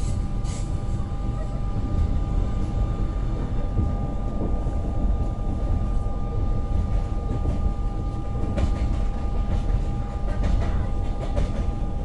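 Passenger train running along the track, heard from inside the carriage: a steady low rumble with a thin, constant hum over it.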